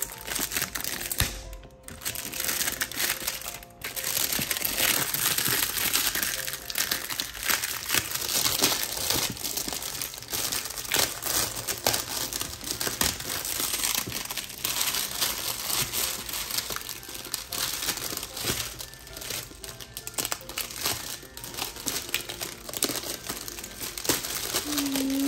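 Clear plastic shrink wrap crinkling and crackling as hands peel it off a cardboard toy box and handle it, a dense, irregular crackle.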